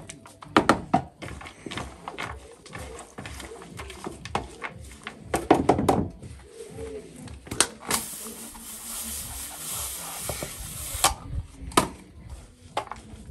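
A scoop scraping and knocking in a plastic tub of horse feed as it is stirred. About eight seconds in, a garden hose spray nozzle hisses water into the tub for about three seconds, then cuts off suddenly, followed by a few more knocks.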